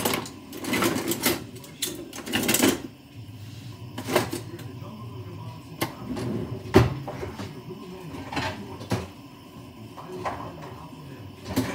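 Utensils and cookware clattering as someone rummages through kitchen storage: rustling and handling in the first few seconds, then scattered sharp clicks and knocks, the loudest about two-thirds of the way through.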